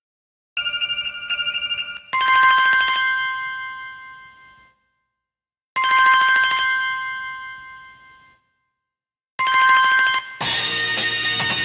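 Samsung Galaxy S2 stock ringtone playing: a short chime figure, then a bell-like tone that rings on and slowly fades, repeating about every three and a half seconds with silent gaps between. Near the end it gives way to a different ringtone, a full-band tune with drums.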